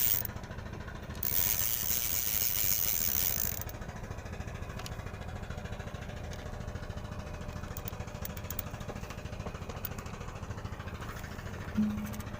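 Fishing boat's engine running steadily at idle, a low even hum. A rushing hiss rises over it for about two seconds near the start.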